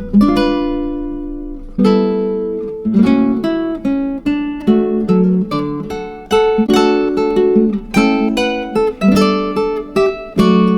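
Background music of acoustic guitar: strummed chords and plucked notes that ring and die away.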